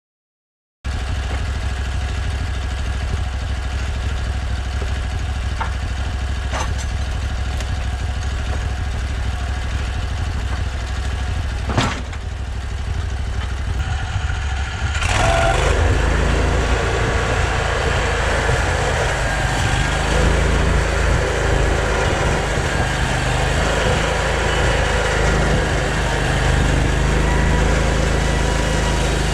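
An engine running steadily. It starts suddenly about a second in, there is a single sharp click near the middle, and the engine gets louder about halfway through and stays so.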